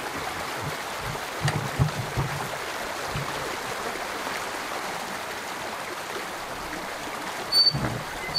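Irrigation water rushing steadily out under a freshly opened wooden sluice gate into a stone-lined irrigation channel (Waal), with a few short low thuds about a second and a half in and again near the end.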